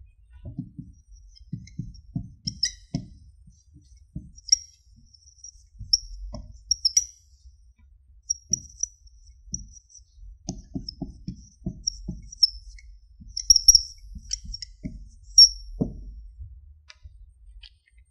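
Marker writing on a whiteboard: irregular spurts of short taps and high squeaks from the felt tip as the strokes of Chinese characters are written.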